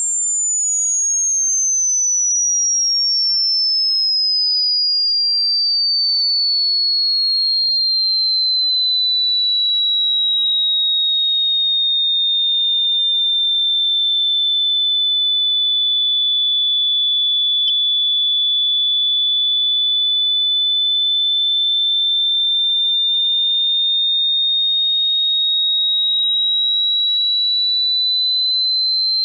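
A single pure electronic sine tone, high-pitched, sliding slowly downward for about fifteen seconds and then creeping slowly back up. There is a faint click a little past the middle.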